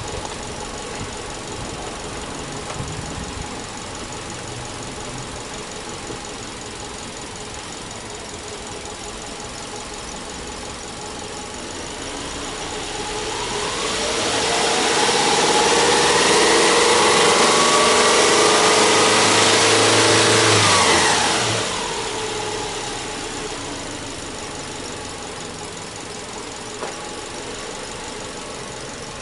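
Subaru Legacy 2.5i's EJ25 2.5-litre flat-four boxer engine, heard at the open engine bay. It idles, then about twelve seconds in it is revved up over a couple of seconds. It is held at high revs for about six seconds, then snaps back to a steady idle.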